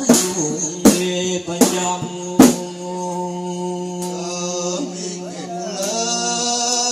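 Frame drum struck four times, about one every three-quarters of a second, over the first two and a half seconds. A man then sings a long, held, wavering dendang melody into a microphone, amplified through a PA.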